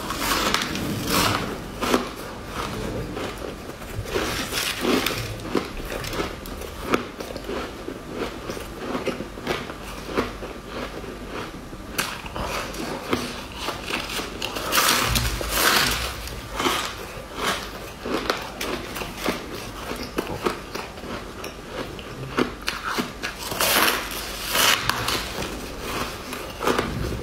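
Close-up crunching as frosty pink ice chunks are bitten and chewed. A dense run of small crackles continues throughout, with louder crunching bites about halfway through and again near the end.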